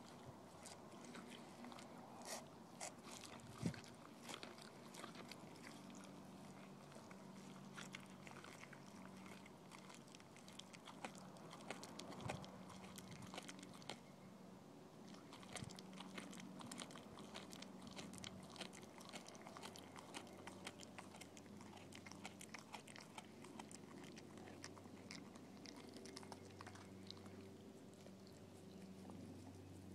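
A dog chewing and gnawing a piece of raw green tripe: faint, irregular wet clicks and crunches, several a second, with one sharper bite about three and a half seconds in.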